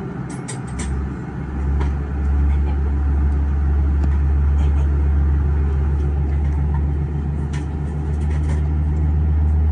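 Steady low hum inside an Airbus A320 cabin, growing louder about two seconds in and then holding steady, with a few faint clicks.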